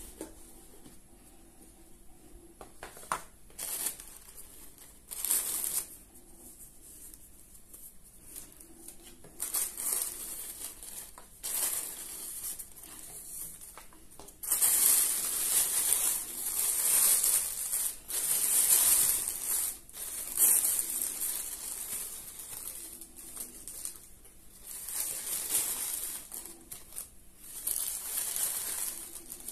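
Hands handling a gift box and unfolding its tissue paper: paper rustling and crinkling in bursts, the longest and loudest stretch through the middle.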